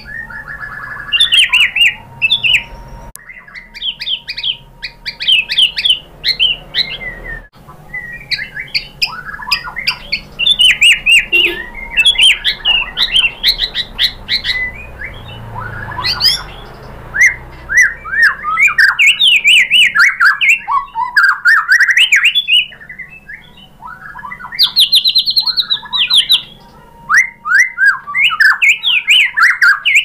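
White-rumped shama in full song, a long, varied run of rapid whistled phrases, fast trills and chattering notes with hardly a pause.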